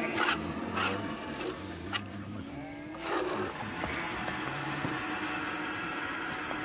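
Goat being milked by hand into a metal bowl: milk squirts hitting the bowl in short strokes about half a second apart, turning into a steadier hiss of milk streaming after about three seconds.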